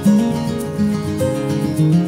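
Background music led by acoustic guitar, with a steady rhythm of plucked and strummed notes.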